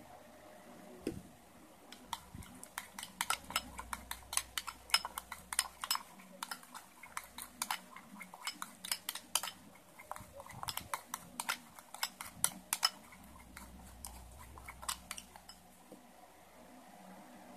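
Metal spoon clinking and scraping against a glass bowl while stirring a thick, wet slime mixture: rapid, irregular clinks that start about two seconds in and thin out near the end.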